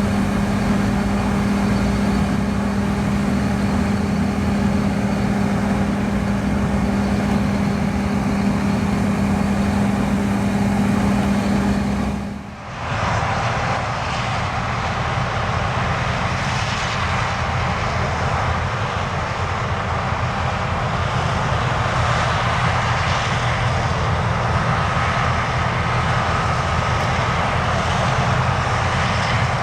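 John Deere combine harvester machinery running with a steady engine drone and low hum; about twelve seconds in the sound switches abruptly to a different, noisier and brighter running-machine sound.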